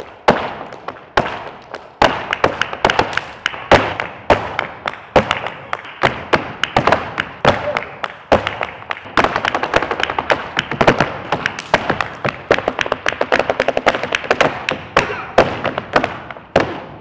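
Flamenco footwork (zapateado): the heels and toes of flamenco shoes stamping and tapping on a wooden stage floor. Single heavy stamps and accents break into fast rolls of taps about halfway through and again later, each strike echoing in the hall.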